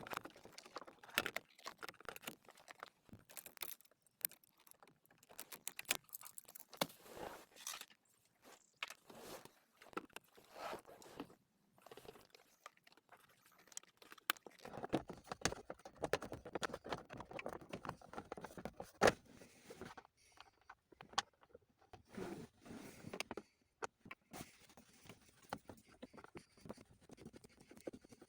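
Irregular clicks, clinks and light knocks of tools and parts being handled, with a denser stretch of rustling and scraping from about 15 to 20 seconds in.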